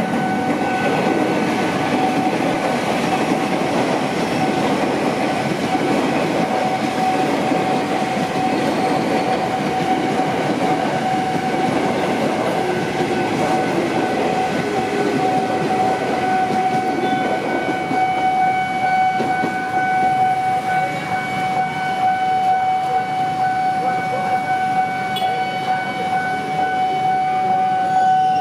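KRL electric commuter train running past close by, its wheels rumbling and clattering over the rail joints. A level-crossing warning alarm sounds one steady tone the whole time.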